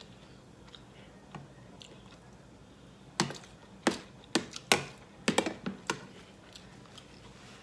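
Eating sounds close to the microphone: after a few seconds of quiet, a quick run of about ten sharp clicks and crunches over roughly three seconds.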